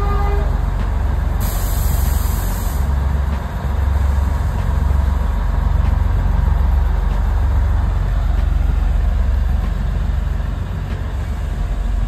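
Narrow-gauge diesel locomotive's engine running with a heavy, steady low rumble. Its horn stops about half a second in, and a short high hiss comes about a second and a half in.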